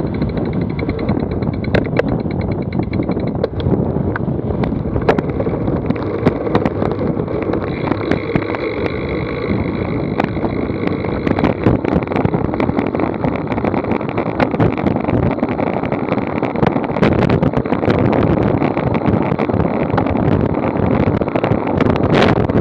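Wind buffeting an action camera's microphone while riding a paved path, with the rumble of tyres rolling and many small clicks and rattles over bumps. The noise grows a little louder in the second half as the speed picks up.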